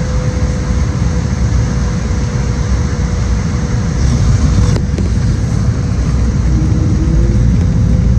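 Steady low rumble of a vehicle in motion, with a faint steady hum and a single click about five seconds in.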